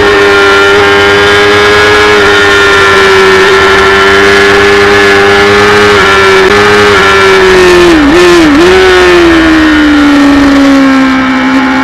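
Kawasaki race motorcycle's engine screaming at high revs, held steady near 13,000 rpm, with wind rush over the rider. About eight seconds in the note dips twice briefly, then falls steadily as the revs drop toward 10,000 rpm.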